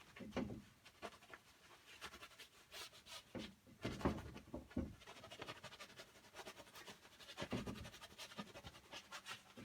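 Palette knife scraping and dabbing acrylic paint across a canvas in short, irregular scratchy strokes, with a louder knock about four seconds in.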